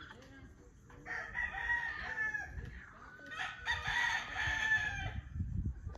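Rooster crowing twice, each crow about a second and a half long, the first starting about a second in and the second about three and a half seconds in.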